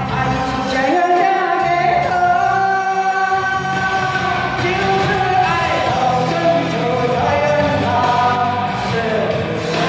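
A woman singing a Mandarin pop ballad into a microphone over a backing track, amplified through the hall's speakers.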